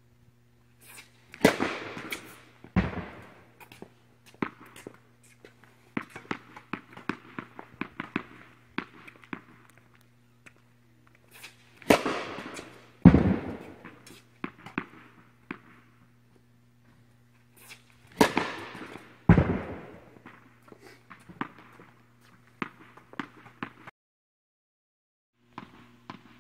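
Tennis balls struck hard by a racket on an indoor court, sharp echoing cracks in three pairs about a second apart, with lighter ball bounces and steps between. A steady low hum runs underneath and drops out briefly near the end.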